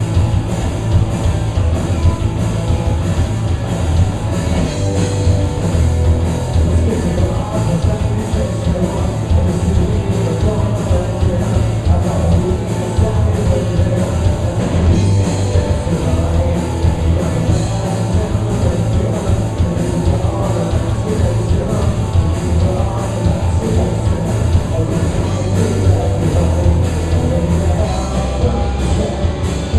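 Rock band playing live: drum kit, guitars and bass at full, steady volume.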